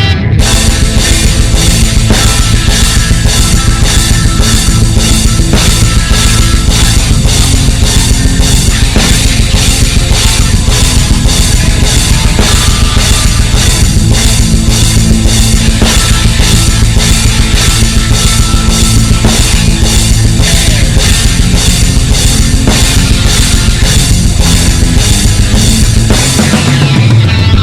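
Rock band playing a loud instrumental passage: a fast, steady drum beat driving under electric guitar and bass.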